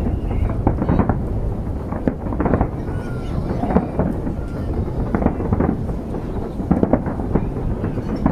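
Aerial fireworks display bursting: many irregular bangs, sometimes several a second, over a continuous low rumble of overlapping explosions.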